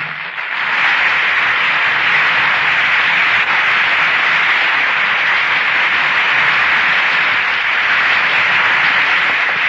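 Audience applauding steadily, heard on an old 1942 radio broadcast recording.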